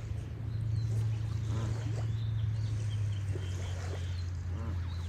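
Geese honking a few times, with faint small-bird chirps, over a steady low hum.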